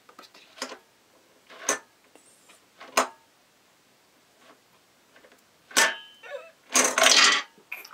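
Lotto barrels sliding off a plastic bowl into a stainless steel pot. There are a few separate clacks, one leaving the pot ringing briefly, then a longer clatter of several pieces together near the end.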